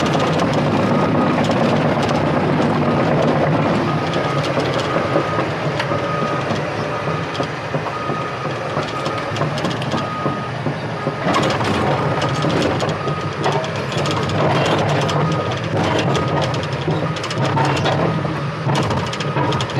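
Heavy diesel engine running with a backup alarm beeping about once a second. About halfway through, metallic clanking and rattling joins in.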